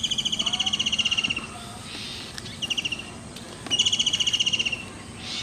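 A bird trilling: fast runs of high, evenly repeated chirps, a long trill, a short one and another long one, with a fourth starting near the end.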